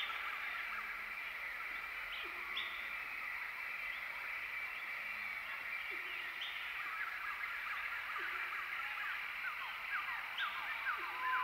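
Forest nature ambience: a steady dense chorus of birds, with a short low hooting note every few seconds. Near the end one bird calls a quick run of short falling notes, about three a second.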